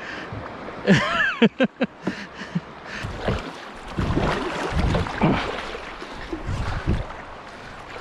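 Water rushing and splashing around a kayak running a small river's rapids, with gusts of wind buffeting the microphone from about three seconds in. A short wordless yell about a second in.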